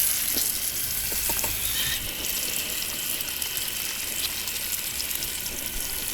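Onions frying in hot oil with spices and tomato, sizzling steadily, with a few light clicks of a stirring spoon in the first second or so.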